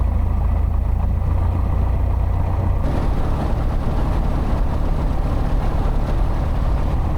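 Piper Archer's four-cylinder Lycoming engine running steadily at low taxi power after landing, a constant low drone with propeller and airflow noise. The sound brightens slightly about three seconds in.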